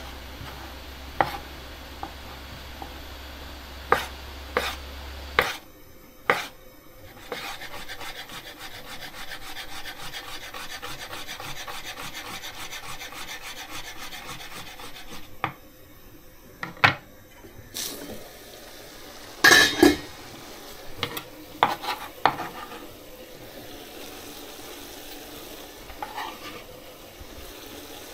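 Chef's knife slicing pickled gherkins on a wooden chopping board: scattered sharp knocks of the blade on the board, with a louder clatter about two-thirds of the way in. A steady hiss fills the middle stretch.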